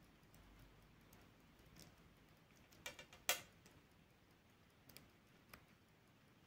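Near silence broken by a few small clicks from a vintage Vantime mechanical watch's crown and stem being pushed and pulled, searching for the spot where the crown catches the winding: a close group about three seconds in, the loudest, then fainter single ticks near the end.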